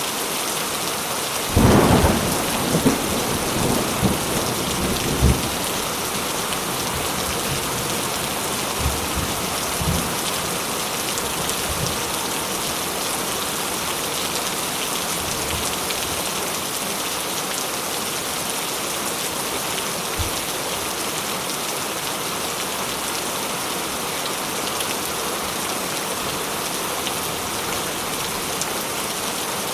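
Steady rain falling, with a thunderclap about a second and a half in, followed by a few seconds of rumbling and a couple of fainter rumbles later on.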